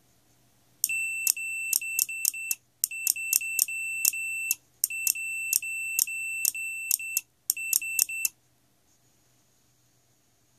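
RadioShack digital multimeter's continuity beeper sounding a high-pitched beep, keyed on and off in Morse code by a USB relay, in four stretches of tone with sharp relay clicks through them; the code is sending '73'. The beeping starts about a second in and stops a little after the middle.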